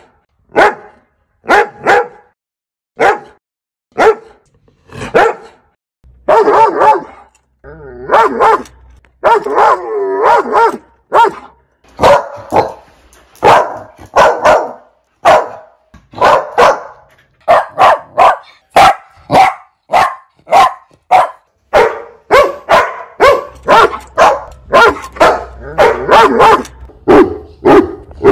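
Dogs barking loudly: single barks about every second and a half for the first few seconds, then faster, closer-spaced barking from about six seconds in, turning deeper near the end.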